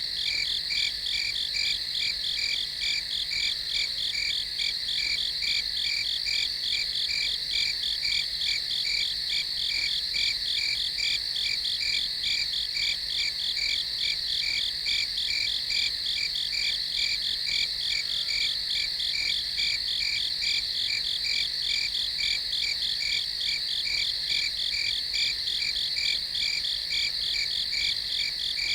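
Night insect chorus of crickets: a steady high trilling with an even, repeating pulse.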